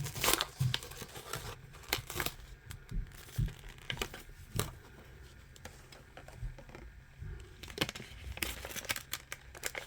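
Crinkling and crackling of plastic or packaging being handled, in short irregular bursts, busiest at the start and again near the end.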